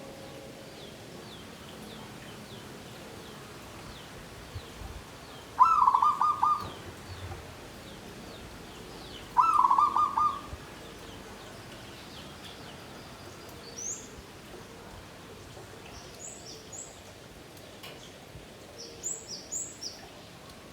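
Zebra dove (perkutut) singing two short phrases of quick repeated cooing notes, about six and ten seconds in. Faint high chirps of other small birds come and go, a little louder in the last few seconds.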